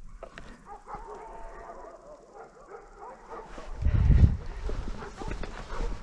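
Hunting dogs barking, their calls wavering in pitch, with a loud low thump on the microphone about four seconds in.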